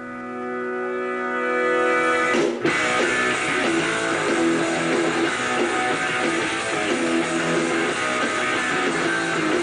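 Guitar-driven rock music. A held chord swells in over the first two seconds, then the full band comes in about two and a half seconds in.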